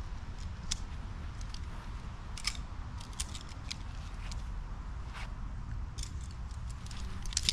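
Scattered crinkles and clicks of a tent's fabric and parts being handled during pitching. Under them runs a steady low rumble of wind on the microphone.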